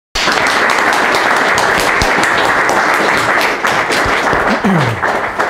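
Audience applauding: a dense patter of many hands clapping, easing slightly near the end.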